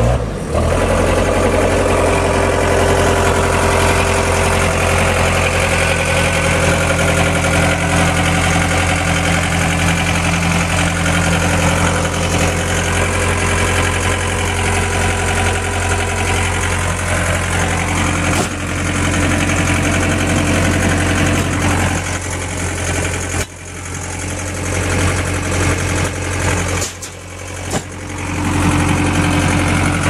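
John Deere 317 skid steer's diesel engine running steadily, heard close up at the engine bay. The sound dips and wavers a few times near the end.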